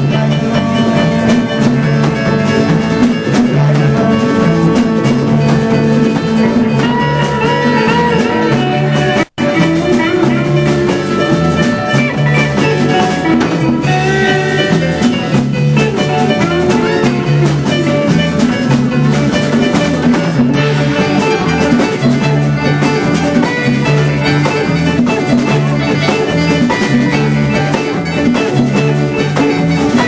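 Live band playing amplified rock music on drum kit, electric guitar and keyboard, with a steady beat. About nine seconds in, the sound cuts out completely for a split second.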